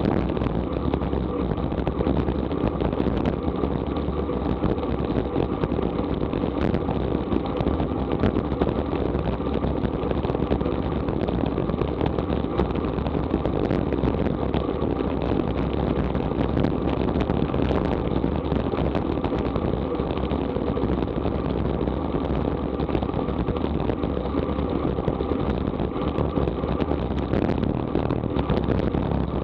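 Steady wind rush over a bike-mounted action camera's microphone, with tyre and road noise from a road bicycle riding at about 25 mph.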